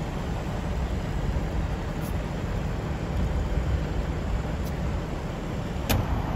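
Steady low rumble of road traffic, with a single sharp click near the end.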